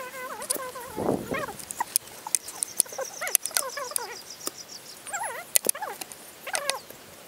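Repeated short animal whines that bend up and down in pitch, mixed with sharp knocks of a metal digging bar striking the soil.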